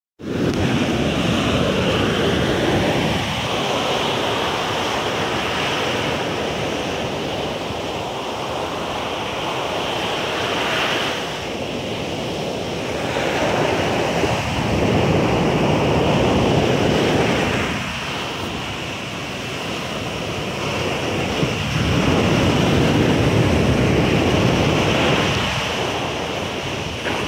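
Surf breaking on a sandy beach, the wash swelling and easing every three to four seconds, with wind on the microphone.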